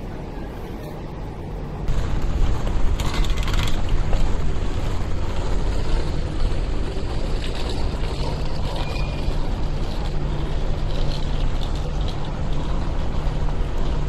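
City street noise while walking: a steady low rumble and hum with a general outdoor din, no speech, growing louder about two seconds in.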